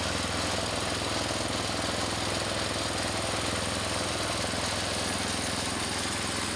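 Engine-driven grinding mill for dry leaves running steadily, a fast even beat over a broad hiss.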